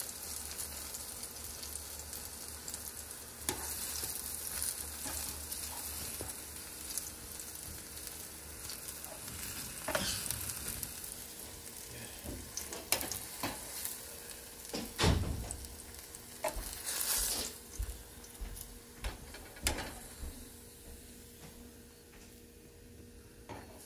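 Ripe plantain slices frying in shallow oil in a nonstick pan, sizzling steadily, with scattered clinks and knocks of a slotted metal spatula lifting the pieces out. The sizzle thins near the end as the pan empties.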